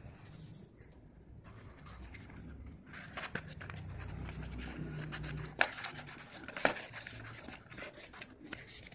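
Paper wrapper of a packet of slate pencils rustling and tearing as it is opened by hand, with two sharp snaps about a second apart a little past the middle.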